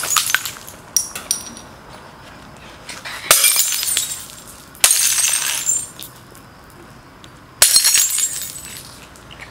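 Glass bottles smashing on an asphalt road, three times, each crash followed by a second or so of tinkling shards.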